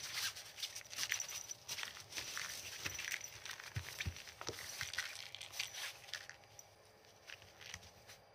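A cat's paws and claws scrabbling on the nylon mesh and fabric floor of a pop-up pen, a run of quick irregular scratches and rustles that dies down about six seconds in.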